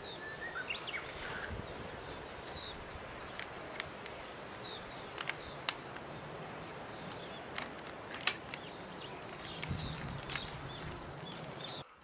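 Outdoor ambience with birds chirping now and then. Several sharp clicks and taps come from gloved hands handling the plastic dust bin of a Dyson handheld vacuum.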